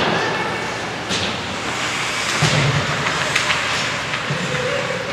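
Ice hockey play: a steady scraping hiss of skates on the ice, broken by a few sharp knocks of sticks and puck.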